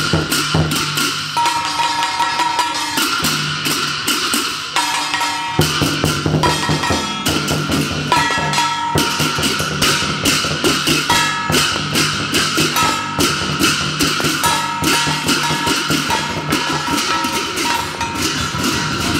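Chinese folk percussion ensemble of a large barrel drum and pairs of brass hand cymbals playing a fast, dense rhythm, with the cymbals clashing and ringing between strikes.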